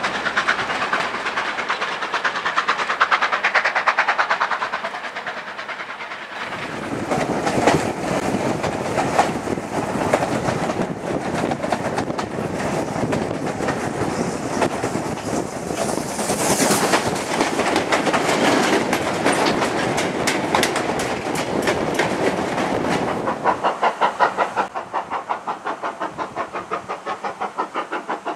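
A steam-hauled train passing, its wheels clicking over the rail joints, then the steady clatter of wheels on track heard from inside a moving carriage. Near the end, a GWR 'Hall' class 4-6-0 steam locomotive's exhaust beats in a fast, even rhythm as it works its train away from the station.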